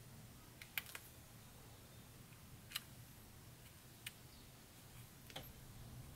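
Near silence broken by a handful of faint, sharp ticks, a second or more apart: the tip of a Staedtler white pen tapping and dabbing on a paper card as small white highlights are added.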